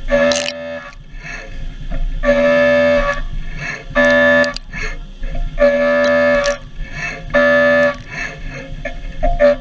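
End mill cutting 4130 steel at high speed: a loud, pitched horn-like tone sounds each time the tool engages in the cut, about five times, each lasting under a second. Between cuts there is a lower machine hum and sharp ticks of chips.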